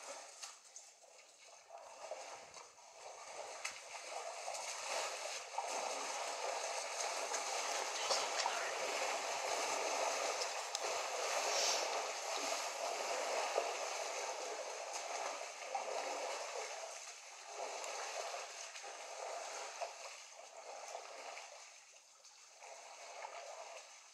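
Water splashing and gurgling as a herd of African elephants drink at a waterhole, swelling through the middle and fading near the end.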